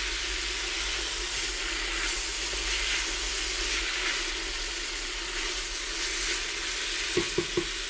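Chopped Swiss chard, onion and garlic sizzling in oil in a pot, stirred with a wooden spatula; the chard is wilting and has begun to give off its water. A few light knocks come near the end.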